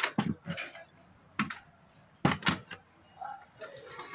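Plastic casing and parts of an old radio-amplifier being handled and moved: a run of clacks and knocks, a cluster near the start, one about a second and a half in and another cluster a little after two seconds.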